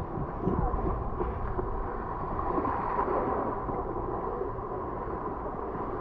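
Steady rushing noise of wind on the camera microphone, with waves washing over the rocky shoreline.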